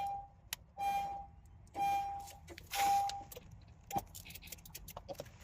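2016 Honda Pilot's warning chime sounding four times, about once a second, then a sharp click about four seconds in followed by faint rapid clicking. The SUV won't start, which the owner puts down to a possibly dead battery.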